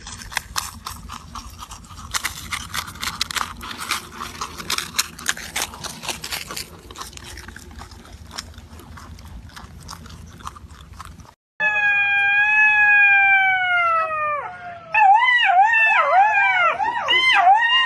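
About eleven seconds of dense crackling and clicking, then after a brief gap a dog howling: one long, slowly falling howl, then a run of short wavering howls, each rising and falling.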